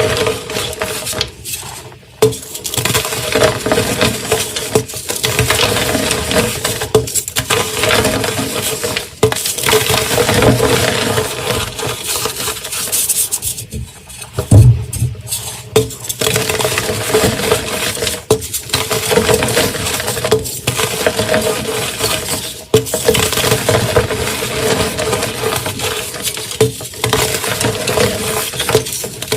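Dyed gym chalk blocks being crushed, a dense crunchy crackling of crumbling chalk that goes on with short pauses every couple of seconds.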